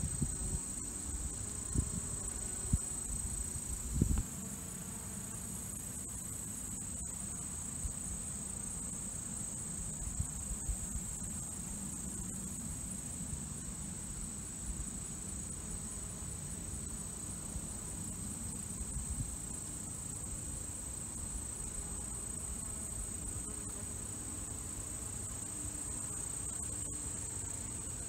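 Insect chorus: a steady, high-pitched trill, over a low rumble, with a few short knocks in the first four seconds.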